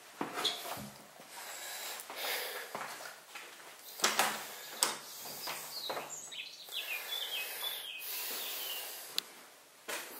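Scattered knocks and creaks of footsteps on decayed wooden floorboards. A few short bird chirps come in about seven seconds in.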